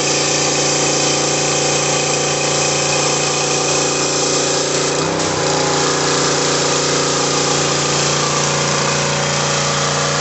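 Gas-engine pressure washer running steadily under load, with the hiss of its high-pressure water jet striking the house siding. About halfway through, the engine note briefly sags and recovers.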